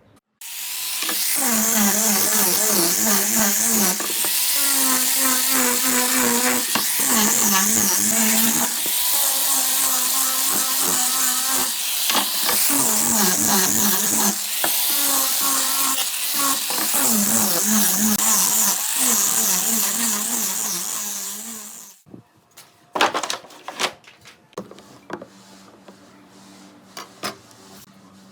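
A high-speed electric power tool running for about twenty seconds, its motor pitch sagging and recovering again and again as it cuts into wood. It stops abruptly, and a few knocks and light clatter follow.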